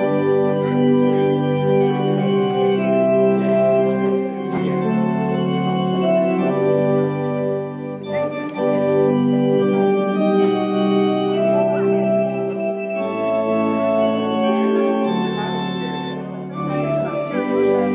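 Organ playing slow, held chords over a bass line that steps to a new note every second or two.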